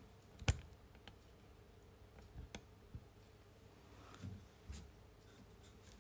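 A handful of light, irregular clicks and taps from handling, the sharpest about half a second in, over a faint steady room hum; the sewing machine is not running.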